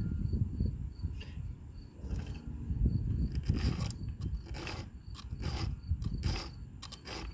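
A file being drawn across the cutter teeth of a Stihl chainsaw chain, sharpening it: short rasping strokes, about one a second.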